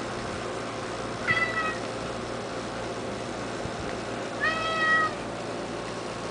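Domestic cat meowing twice: a short meow a little over a second in, and a longer, steadier meow at about four and a half seconds.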